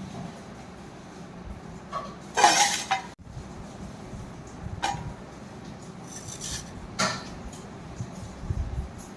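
Kitchen dishes and utensils clattering. There is a loud clatter about two and a half seconds in, followed by a few separate light clinks.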